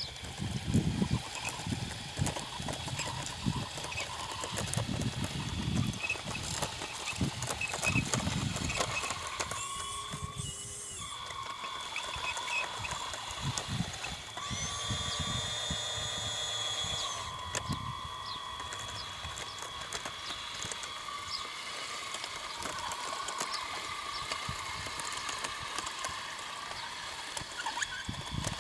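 Radio-controlled tracked loader model driving over sand: a whine from its drive motors and gears that rises and falls in pitch as it moves, with low uneven rumbling in the first ten seconds or so.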